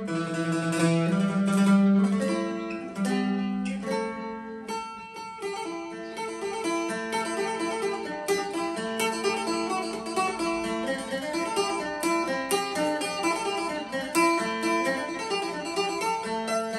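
Sunburst bodhi-leaf-shaped phin, the Isan lute, played solo: a fast picked melody of many quick notes over a low drone note held for several seconds at a time.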